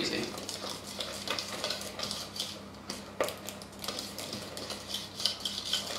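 Wire whisk beating flour into a batter of eggs, sugar and melted butter in a plastic mixing bowl: a rapid run of light scraping ticks as the wires strike the bowl, with one sharper knock about three seconds in.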